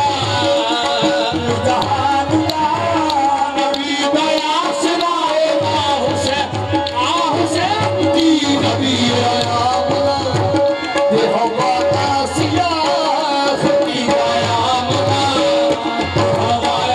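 Live qawwali music: a driving hand-drum beat under a wavering melody line and a steady held tone.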